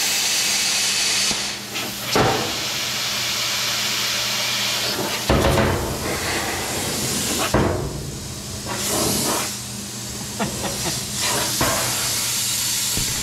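Handheld plasma cutter cutting through a truck's sheet-steel body panel: a loud, steady hiss of the arc and air jet that breaks off briefly and restarts several times as the cut is paused and resumed, over a steady low hum.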